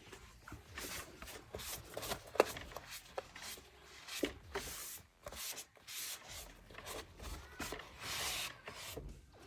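The plastic 2-in-1 dust bin of a Xiaomi robot vacuum being opened and cleaned out by hand. Irregular clicks and knocks of the plastic parts, mixed with short stretches of rubbing and scraping.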